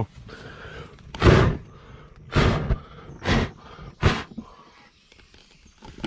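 Four hard puffs of breath blown in quick succession, about a second apart, blowing out a small fuel fire on top of the engine.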